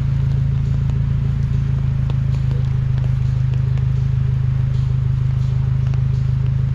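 A vehicle engine running steadily, a constant low hum with an even pulse, with a few faint scattered clicks over it.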